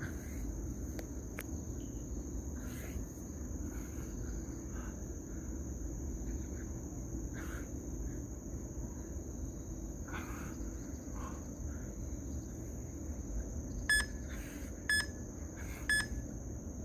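Steady high-pitched insect trill over a low background hum, then three short electronic beeps a second apart near the end: an interval timer counting down the last seconds of a rest.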